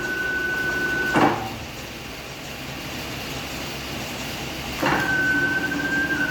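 CNC wire bending machine working through its cycle. A steady high whine cuts off with a clunk about a second in. After a quieter stretch, the whine starts again near the end.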